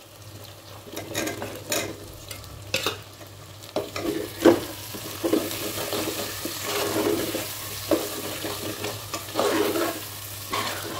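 Onion, tomato and potato chunks frying in oil in an aluminium pressure cooker with a steady sizzle, while a metal spoon stirs and scrapes against the pot. The spoon knocks sharply on the pot now and then, loudest about halfway through.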